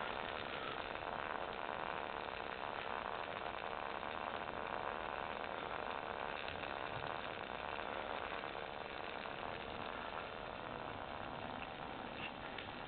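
Steady, even hiss of background noise with no kicks or impacts on the bag.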